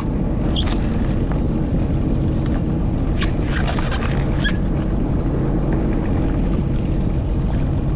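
Sea-Doo Fish Pro jet ski's engine running steadily, with water rushing and splashing against the hull.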